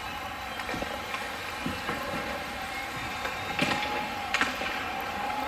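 Ice hockey rink ambience: a steady arena hum with a few sharp clacks, two of them close together a little past the middle.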